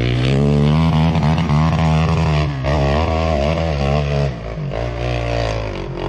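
Off-road vehicle engine running hard at high revs under load, its pitch wavering up and down. It eases off somewhat about four seconds in.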